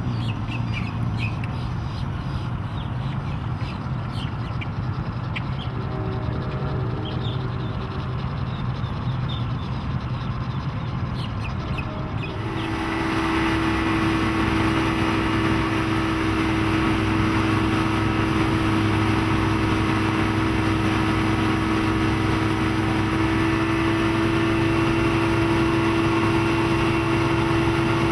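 Johnson 150 outboard motor running steadily at low speed, with faint high chirps over it. About halfway through the sound switches abruptly to a louder, steady engine note with a strong hum and a lot of added hiss.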